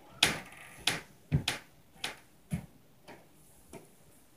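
A run of about eight irregular knocks and thuds from the apartment above, heard through the ceiling: neighbours stomping overhead. The loudest come in the first second and a half, and they thin out and fade after about three seconds.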